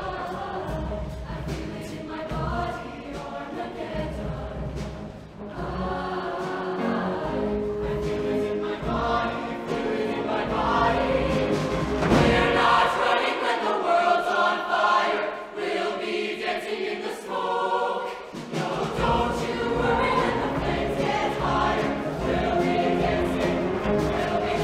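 Show choir singing in full voice with a live band behind it. For about five seconds past the middle the bass drops out and the voices carry on over the higher parts alone, then the full band comes back in.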